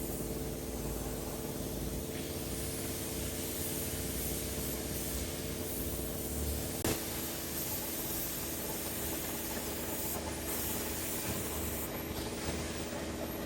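Steady spraying hiss over a constant machine hum, with a single short click about seven seconds in.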